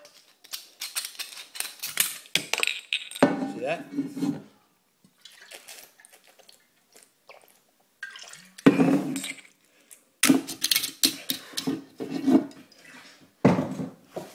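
Knocks, clicks and clatter of objects handled right next to the microphone, with drinking from a large plastic bottle partway through and a few short wordless vocal sounds.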